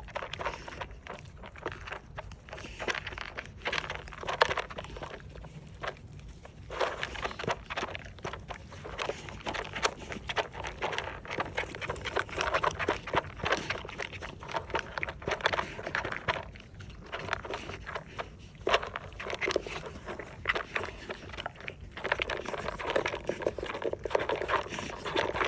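Dog licking and crunching dry food out of the grooves of a slow-feeder bowl: a busy run of small licks, clicks and chews, with a few short pauses.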